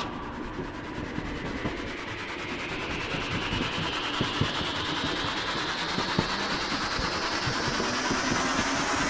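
A machine running with a steady noisy rumble and scattered short rattling knocks, over a high whine that rises slowly in pitch.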